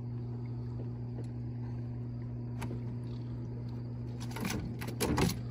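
Steady low mechanical hum from the boat's equipment. Near the end come a few sharp knocks and a louder thump as a shot fish on a bowfishing arrow is swung into the aluminium jon boat.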